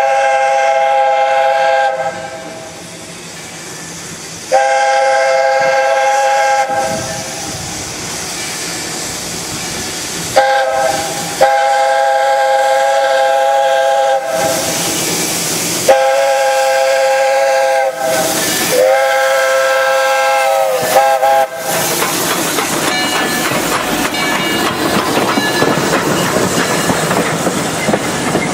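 Steam locomotive's chime whistle blowing a series of long and short blasts, several tones sounding together, one blast sagging in pitch as it ends. Steam hisses between the blasts, and a steady hissing rush takes over after about twenty seconds.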